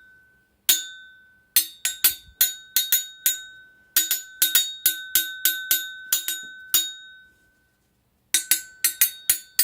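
Steel blade of a thinned IKEA Vardagen Chinese cleaver tapped over and over, each tap ringing out in a clear, bell-like high tone: the thin blade sings. The taps come in quick runs, with a short pause late on.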